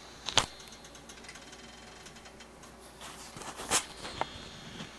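A few light clicks and clinks of a spoon and a small glass bowl over a nonstick pan while cooking oil is poured in: one just after the start, then several about three to four seconds in. Otherwise quiet room tone.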